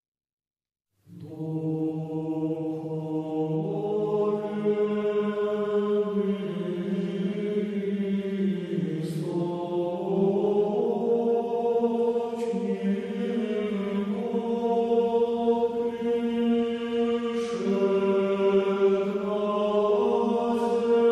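Orthodox church chant sung by a choir in long, slow held notes over a sustained drone, starting about a second in after silence.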